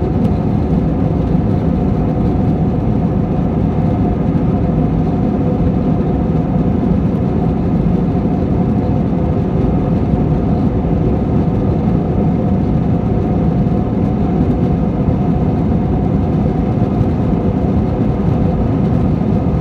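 Jet airliner engines and rushing air during a takeoff, a steady low rumble that holds without change.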